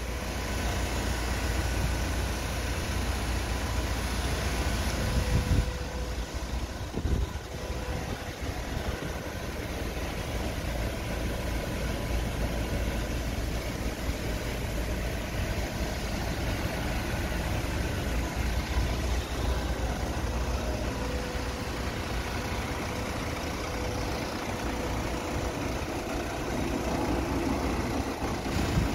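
Freightliner Sprinter van's diesel engine idling steadily, with a couple of short knocks about six and seven seconds in.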